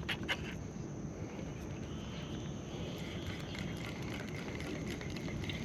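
Faint steady high-pitched trilling of insects, crickets or similar, over a low steady outdoor background hum.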